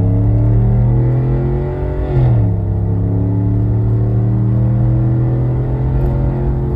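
2019 Ram 1500 with a straight-piped exhaust and no resonators, accelerating hard. The exhaust note climbs slowly in pitch, drops sharply at an upshift about two seconds in, then climbs again.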